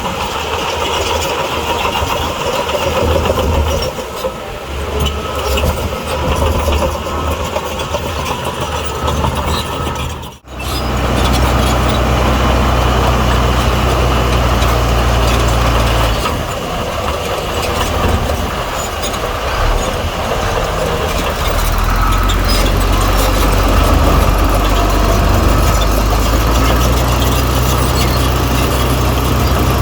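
Heavy diesel engines of earthmoving machinery running steadily. The sound briefly drops out about ten seconds in and comes back with a louder, deeper drone.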